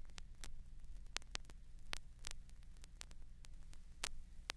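Vinyl LP playing a quiet stretch of groove: irregular clicks and pops of surface noise, two or three a second, over a steady low hum from the turntable and phono preamp.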